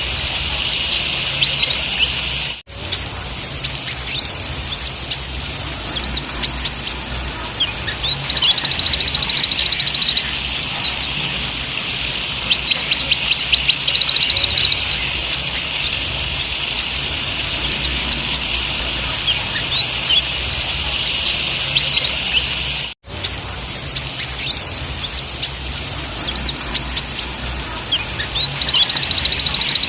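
Kolibri ninja (sunbird) song: many sharp, high chirps broken by stretches of very fast, high trills, over a steady hiss. The sound cuts out briefly twice, about three seconds in and again after about twenty-three seconds.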